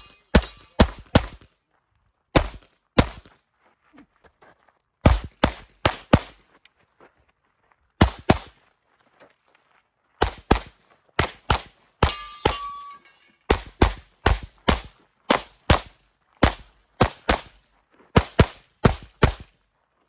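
Handgun fired rapidly through a competition stage: loud sharp shots, mostly in quick pairs, with short pauses between groups of targets. A brief ringing tone sounds once partway through.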